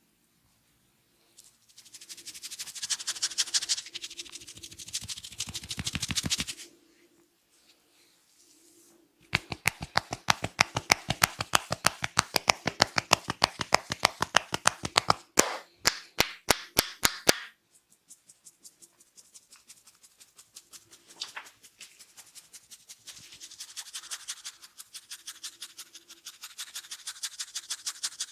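A barber's hands massaging a head: fast rubbing and scratching through the hair, then a long run of quick sharp pats about five a second, stopping and restarting briefly, then more rubbing and scratching that grows louder near the end.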